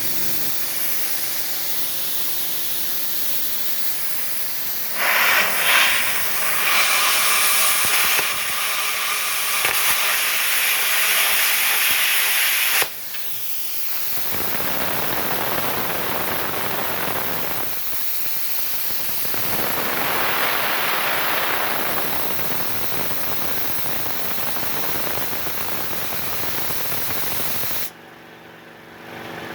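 Multipro CUT 45G air plasma cutter cutting 2 mm steel plate: a steady loud hiss of the torch's compressed-air arc. It is louder for several seconds near the start, dips briefly, carries on, and cuts off shortly before the end.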